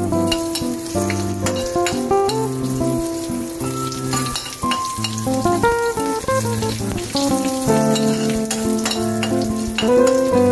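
Tempering spices (dried red chillies, bay leaves, curry leaves and seeds) sizzling in hot oil in a steel pan while being stirred with a spoon, with frequent small ticks, under background music with a repeating bass line.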